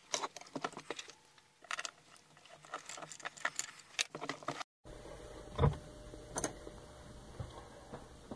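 Small metal bolts and parts clinking and tapping against an electric motor's metal housing as they are handled, with a single heavier knock a little past halfway as the motor is shifted on a wooden bench.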